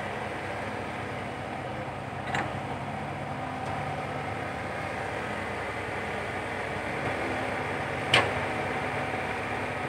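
Komatsu PC120-5 hydraulic excavator's diesel engine running steadily as it works the bucket. Two sharp knocks cut through it, one about two seconds in and a louder one about eight seconds in.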